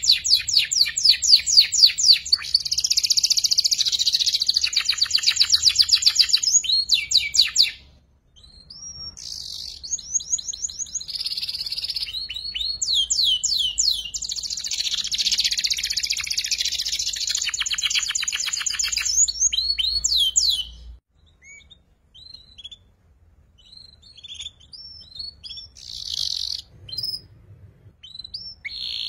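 Young canary practising its song: long runs of rapid, evenly repeated high trilling notes, the chattering 'ngeriwik' of a juvenile still learning to sing. The trilling breaks off briefly about eight seconds in and stops about three-quarters of the way through, leaving only scattered short chirps.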